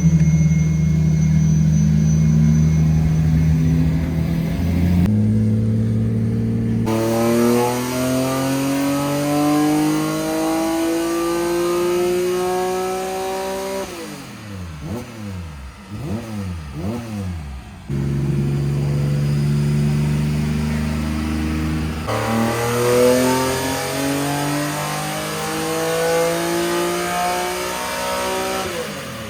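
Car engine running hard in several abruptly cut segments: long rising-pitch pulls as it accelerates, and a few seconds of quick up-and-down revs in the middle.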